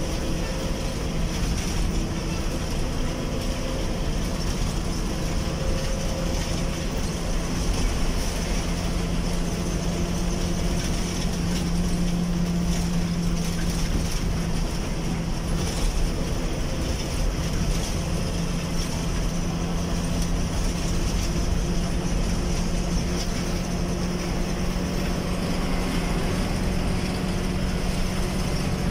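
Bus engine and tyre noise at highway cruising speed, heard from inside the bus's cabin: a steady low engine hum over even road rumble, the hum growing louder for a few seconds around the middle.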